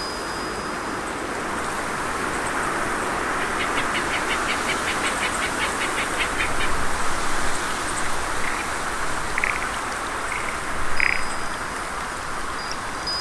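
Steady rush of a flowing stream. For a few seconds in the middle a rhythmic series of high chirps runs at about four a second, and a few single short high calls come near the end.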